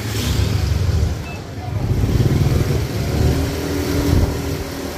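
Motor scooter being ridden slowly, heard from the rider's seat: a low, uneven rumble.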